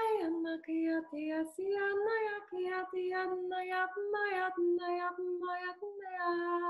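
A woman singing wordless light-language syllables in a high chant held on nearly one note, with a brief dip in pitch at the start. The syllables come about every half second, and the last one is held longer near the end.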